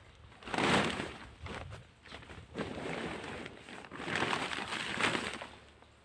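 Plastic cover sheeting rustling and crinkling in three swishes as it is pulled back off seedling beds.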